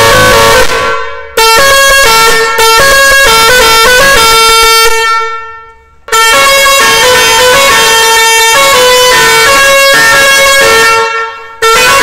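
Musical truck pressure horn playing tunes picked from a push-button selector: loud horn notes step through a melody. It fades out and a new tune starts about a second in, again near the middle, and again near the end.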